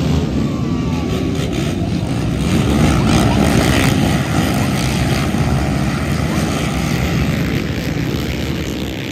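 A pack of racing quads (ATVs) launching off the start line at full throttle, many engines revving together with a continuous loud snarl, loudest as the pack passes about three to four seconds in.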